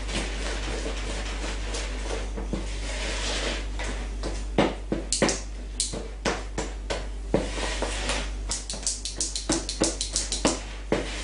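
Cake batter being stirred by hand in a plastic mixing bowl: scraping at first, then from about halfway a run of quick taps and knocks of the utensil against the bowl, fastest near the end. A steady low hum runs underneath.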